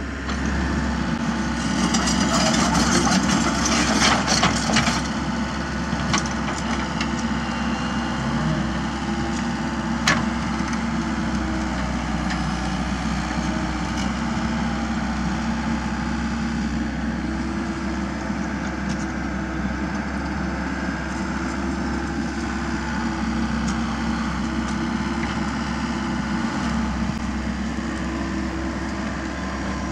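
Komatsu PC78US mini excavator's diesel engine running steadily as it digs a trench, with the bucket scraping through soil and stones, loudest for a few seconds near the start. A single sharp knock about ten seconds in.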